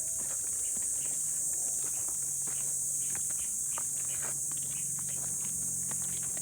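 Footsteps on a rocky dirt trail, a series of short scuffs and crunches, over a steady high-pitched chorus of insects.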